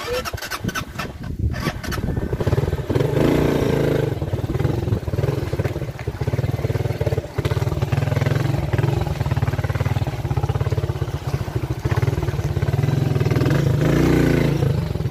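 Small motorcycle engine running steadily close by on a rough mud track, with a quick run of clatter and clicks in the first second or so.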